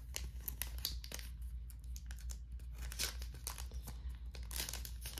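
Clear plastic cellophane sleeve crinkling as fingers handle it and pull it open, in a scatter of small irregular crackles.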